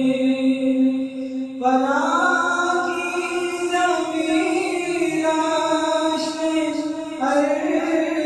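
A naat, an Islamic devotional song, sung by a male voice in long held notes. The pitch slides up about one and a half seconds in and shifts again near the end.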